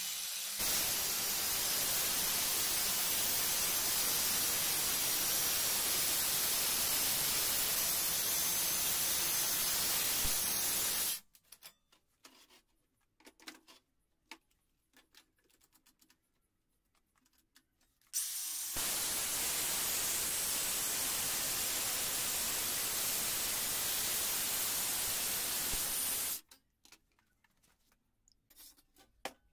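Cordless angle grinder cutting thin sheet steel: a steady, even rushing noise with no clear pitch for about ten seconds that stops abruptly. A few faint clicks follow in near quiet, then the same cutting noise runs again for about eight seconds.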